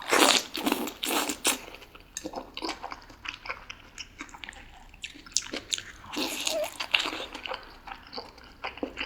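Close-miked eating of boiled dumplings in sour soup: wet biting and chewing with quick mouth clicks, in several louder bursts.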